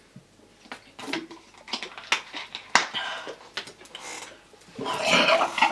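Gulps and short plastic-bottle noises as people swig Sprite from 2-litre plastic bottles, then a loud, rasping throat sound near the end as one of them struggles to keep the banana and Sprite down.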